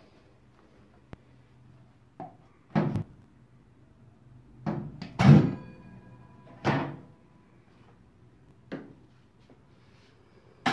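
Several separate knocks and thunks, the loudest about five seconds in, from handling at a toaster oven and opening its door.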